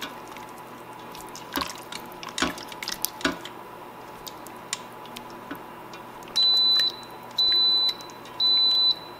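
Silicone spatula stirring thick stew in an Instant Pot's stainless steel inner pot, with a few knocks and scrapes against the metal. About six seconds in, the Instant Pot beeps three times, high and even, about a second apart, the signal that the sauté setting has started heating.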